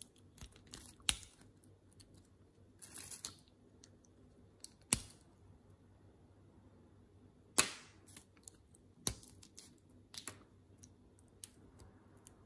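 Brittle dalgona sugar candy snapping and cracking as it is broken away by hand from a stamped flower shape. The cracks come singly and at uneven intervals, the sharpest about a second in, near five seconds, and twice between seven and a half and nine seconds.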